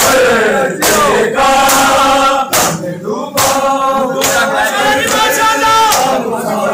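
Men's voices chanting a Punjabi noha (Shia lament) together, with sharp slaps of matam, hands beating on bare chests, coming in a slow beat through the chanting.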